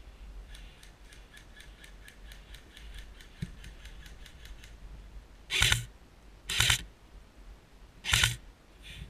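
Airsoft electric rifle firing three short bursts about a second apart, each a quick burst of shots with the gearbox whirring. Before them comes a run of faint, rapid ticks.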